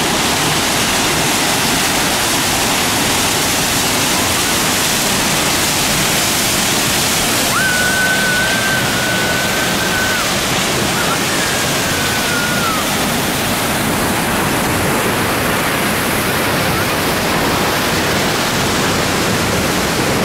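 Waterfall plunging close by: a steady, loud rush of falling water.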